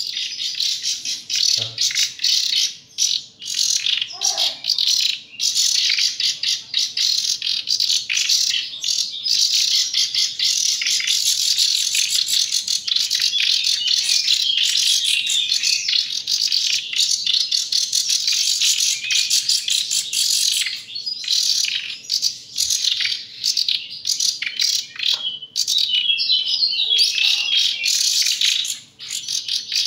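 Nightingale chicks giving continuous high-pitched begging chirps while being hand-fed.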